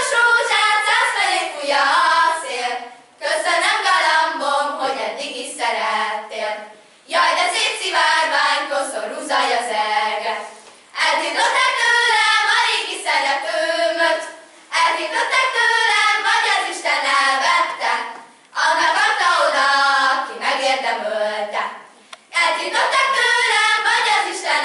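A group of young girls singing a Hungarian folk song unaccompanied, in phrases a few seconds long with short breaks for breath between them.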